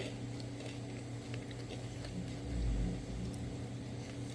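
A steady low mechanical hum with a couple of constant tones, faint small ticks over it, and a brief low rumble about two and a half seconds in.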